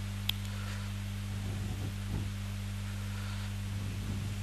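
Steady low electrical hum, with one sharp click about a quarter second in and faint scratching of a marker drawing lines on a whiteboard.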